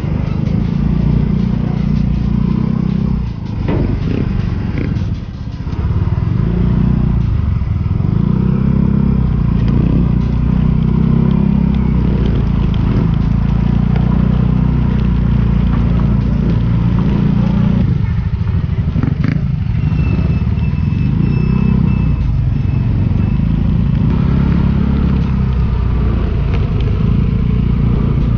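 Yamaha motor scooter running under way, with other motorcycles riding close by. A steady low engine and road rumble is broken by a few short knocks about four seconds in and again near nineteen seconds.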